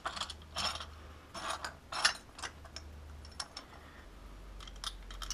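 Light metallic clicks and scrapes at irregular intervals, as small metal parts are fitted by hand into a motorcycle's front wheel hub.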